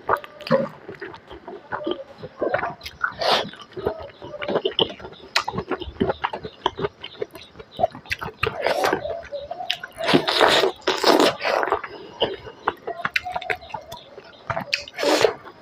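Close-up mukbang eating sounds: wet chewing and lip smacking of smoked chicken and rice eaten by hand, made of many short, irregular clicks, with louder bouts of chewing a little past the middle and near the end.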